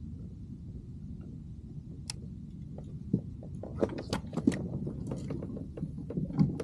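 Irregular knocks and clicks on a plastic fishing kayak as the angler shifts his footing and handles his rod and gear, over a steady low rumble. The knocks start about three seconds in and come thickest near the end.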